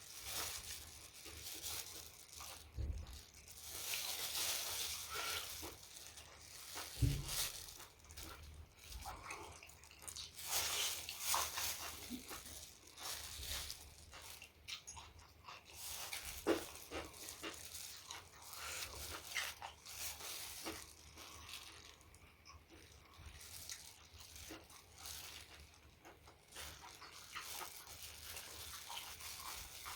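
Close-miked eating sounds: irregular wet chewing, smacking and crunching of food, with occasional soft thumps.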